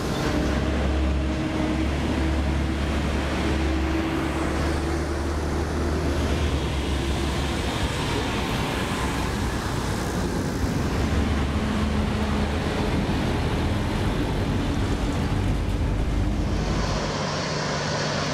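Heavy truck diesel engine running steadily, a low engine hum under road noise.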